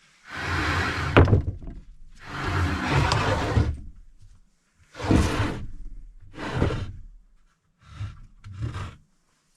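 Wooden boards being handled: six scraping, knocking bursts, each a second or so long, with a sharp knock in the first two.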